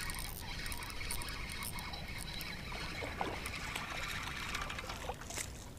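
Spinning reel being cranked steadily, its gears whirring with fine rapid ticking as line winds in.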